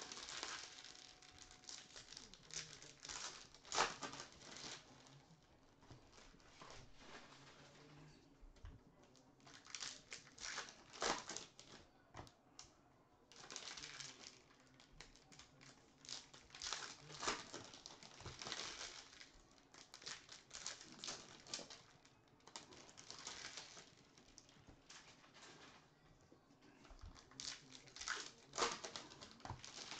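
Faint, intermittent crinkling and tearing of trading-card pack wrappers, with cards being handled and sorted, in short irregular rustles.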